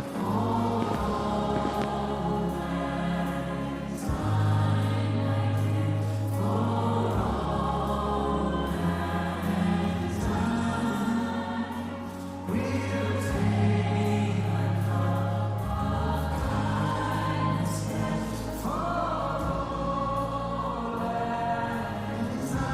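Choir singing with musical accompaniment, over long held bass notes that change every few seconds.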